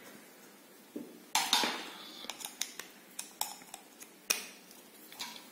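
Plastic clicks and clatter of a USB wall charger and its cable being handled on a tabletop: a string of short, sharp knocks, the loudest about a second and a half in and again about four seconds in.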